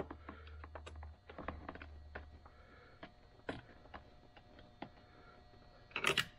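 Light, irregular clicks and taps of small plastic parts and screws being handled while fitting a car's power seat switch assembly, with a louder clatter of clicks near the end. A faint low hum stops a couple of seconds in.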